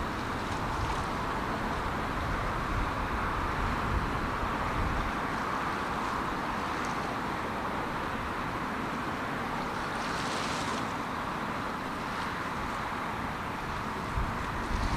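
Steady wash of wind and sea water, with wind buffeting the microphone in the first few seconds and again near the end.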